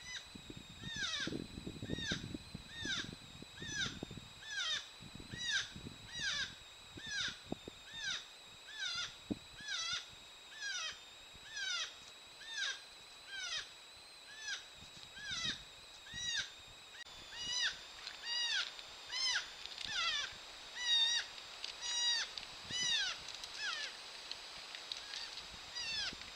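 North American porcupine calling during courtship: a short, whining squeal that slides in pitch, repeated steadily about every three-quarters of a second, then coming faster and louder about two-thirds of the way through. The uploader takes it for the female up in the tree rejecting the advances of a male on the ground.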